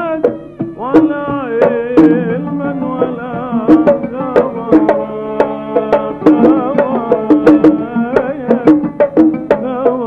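Kuwaiti song music in an instrumental passage: hand drums beat a steady rhythm under an oud, with a melody of long wavering notes carrying the tune.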